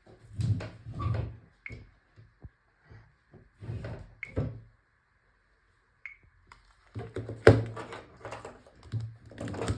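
Irregular knocks and thumps of handling noise, with three very short high chirps spread through it and a faint steady high tone underneath. There is a quiet pause in the middle.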